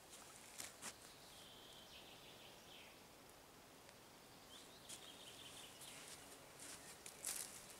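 Near silence: faint ambient noise with a thin high-pitched trill that comes twice, and a few brief rustles and clicks, the loudest near the end.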